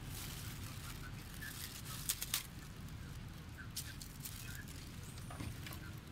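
Thin plastic bags crinkling in short, sharp crackles as macaques pull food out of them, the loudest cluster about two seconds in, over a low steady rumble.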